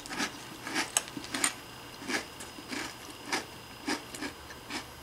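Close-up chewing of a mouthful of chocolate corn cereal balls with marshmallows in milk: a run of crisp, very crunchy crunches, two or three a second.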